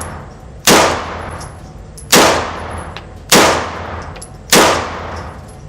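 An AR9 9mm carbine with a muzzle brake fired four times, about a second and a quarter apart. Each shot is loud and sharp, followed by a ringing tail.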